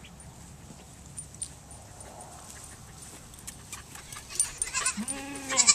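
Young goats bleating: a short, low bleat about five seconds in, then a loud, wavering high bleat near the end.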